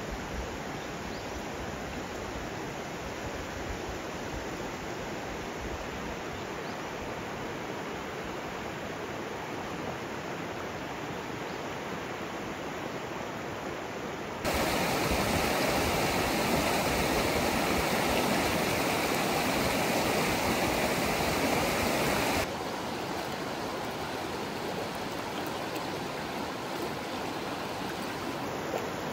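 Shallow mountain stream flowing over stones and riffles: a steady rush of water that grows louder and brighter for about eight seconds in the middle, then drops back.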